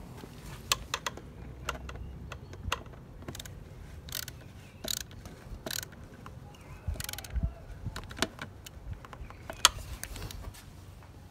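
Worm-drive hose clamp on a cone air filter being tightened with a hand screwdriver: a string of irregular metallic clicks and scrapes, with one sharper click near the end.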